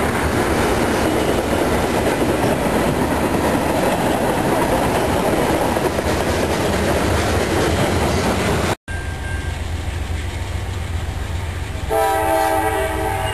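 Freight train of tank cars rolling past, with a steady rush of wheels on rail and car clatter. It cuts off abruptly about nine seconds in, leaving a low steady rumble, and near the end a locomotive's multi-note chime horn sounds from an approaching train out of sight.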